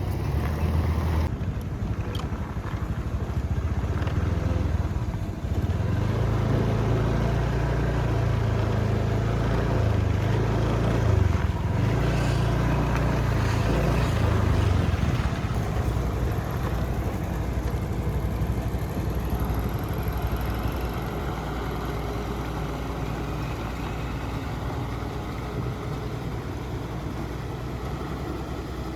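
Heavy diesel engine running. Its pitch rises and falls between about 6 and 15 seconds in, then it settles into a steadier, slightly quieter drone.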